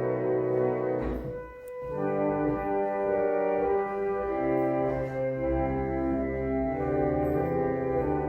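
Church organ playing held chords, with a brief break between phrases about a second in.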